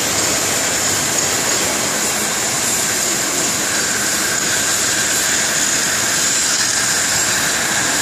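CNC gantry cutting torch cutting through thick steel plate with a steady hiss. A faint high tone joins in about halfway through.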